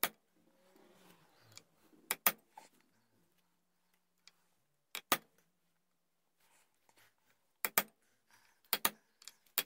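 Small hammer tapping a round punch against a flintlock pistol barrel, staking the edges of the V-notch to close it tight on the brass front sight's base. Sharp metallic taps, mostly in quick pairs, every two to three seconds.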